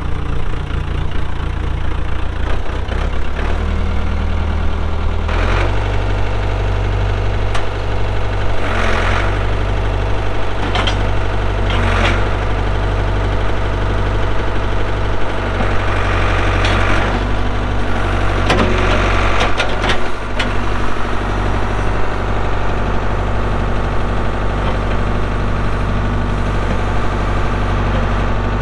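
Ford 555D backhoe's diesel engine running just after start-up, its pitch stepping up twice in the first six seconds as the revs come up, then running steadily with a clattering note. Several short metallic clanks come from the machine between about nine and nineteen seconds in.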